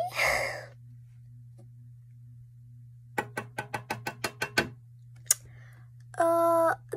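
A rapid run of about ten light taps lasting about a second and a half, a single click shortly after, then a girl's short held sung note near the end, over a steady low background hum.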